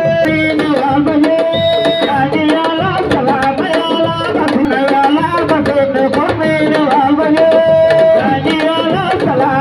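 Music of hand drums played in a quick, busy rhythm, with a voice singing over them.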